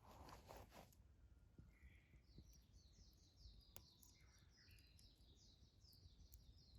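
Faint birdsong: a quick series of short, high, falling notes, starting a couple of seconds in and repeating several times a second.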